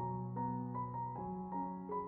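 Background music: a gentle piano melody, with single notes struck about every half second and left to ring.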